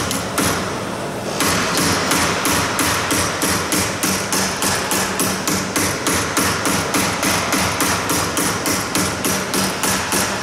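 Rapid, even hammer blows, about four a second with a short lull about a second in, knocking the flange of a metal fuselage former over along its inner curve while it is held in a bench vice.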